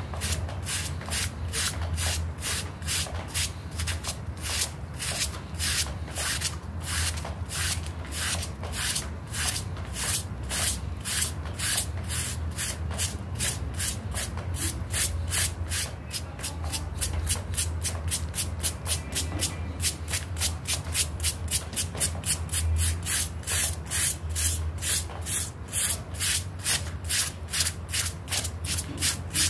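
A stiff-bristled hand brush scrubbing a small wet, muddy carpet sample back and forth in quick, even strokes, about three a second.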